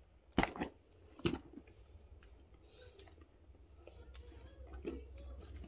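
Two sharp clicks about a second apart from the magnetic snap closure of a red leather Gucci Rajah tote as it is worked open and shut, then soft handling noise of the leather bag.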